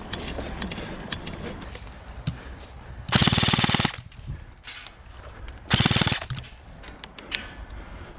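Krytac LMG electric airsoft light machine gun firing two full-auto bursts: one just under a second long about three seconds in, and a shorter one roughly two and a half seconds later.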